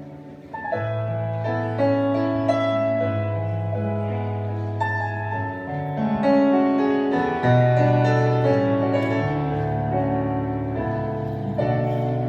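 Keyboard playing a slow instrumental introduction to a worship song: held chords over long sustained bass notes, starting about half a second in.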